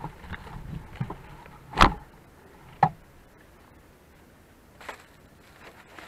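Handling knocks and bumps as a camera is set in place, the loudest about two seconds in and a sharper one about a second later, with a faint rustle near the end.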